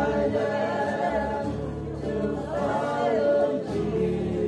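A group of voices singing a hymn together, choir-style.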